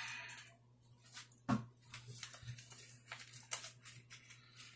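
Shower curtain hooks being handled on the curtain rod: a short rustle, one sharper knock about a second and a half in, then scattered light clicks and rustles.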